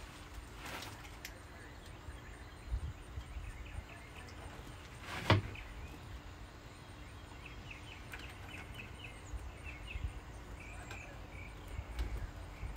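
Hands working against a wooden front door: a few soft knocks, then one sharp click about five seconds in. Faint high chirping from about seven seconds on, over quiet outdoor background noise.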